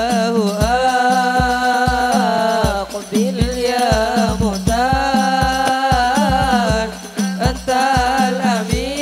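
Hadrah ensemble: a male voice singing an Islamic devotional song into a microphone in long, melismatic phrases, over frame drums beating a steady rhythm of deep thumps.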